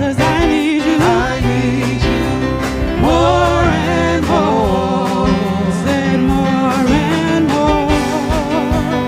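Live gospel praise-team singing: women's voices in harmony holding long notes with vibrato, over keyboard accompaniment.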